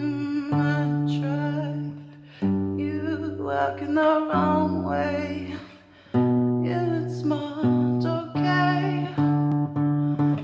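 Alternative rock song: guitar chords with a singing voice, dipping briefly twice between phrases.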